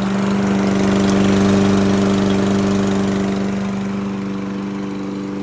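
Toro Recycler 22-inch lawn mower's Briggs & Stratton single-cylinder engine running steadily after a pull start, now that its clogged carburetor jet has been replaced. It gets a little louder about a second in, then eases back.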